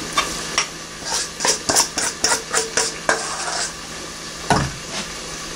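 A spoon scraping and clicking against a mixing bowl in a quick run of short strokes, as flour is scooped out. A single heavier knock follows about four and a half seconds in.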